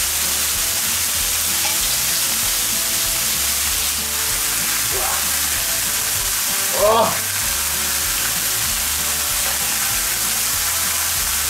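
Bacon and beef burger patties sizzling on a wood-fired steel griddle plate: a steady, loud frying hiss.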